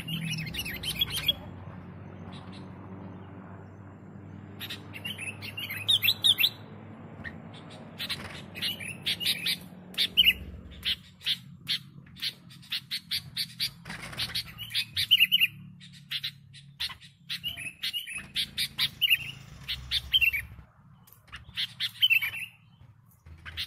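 Sooty-headed bulbul (kutilang) singing in short bursts of rapid chirping phrases, repeated every few seconds with brief pauses. A low steady hum underlies the first half and fades about eleven seconds in.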